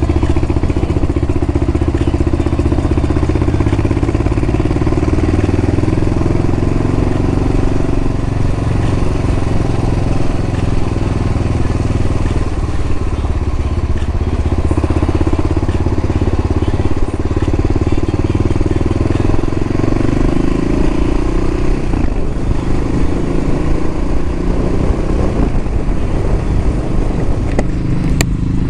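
Suzuki DR 650 RS single-cylinder four-stroke motorcycle engine running under way. Its note shifts with the throttle, dipping about two-thirds of the way through and then rising again as the bike picks up speed.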